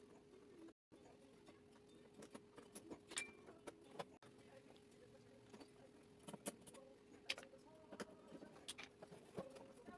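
Faint, irregular metallic clicks and taps of screws and hand tools as a headlight assembly is fastened back in place, over a faint steady hum.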